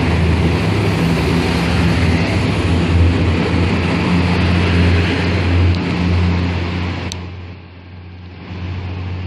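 Siemens Desiro diesel multiple unit running past with its engines droning steadily under an arched train shed. About seven seconds in the sound drops suddenly to a quieter rumble, with a couple of sharp clicks near the end.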